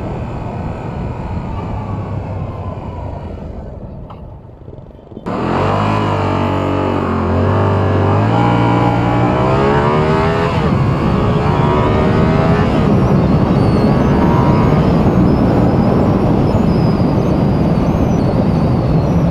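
Yamaha R7 motorcycle running on the road. About five seconds in it pulls hard through the gears, the engine note climbing, dropping at each upshift and climbing again about three times, and then gives way to a steady rush of wind noise at speed.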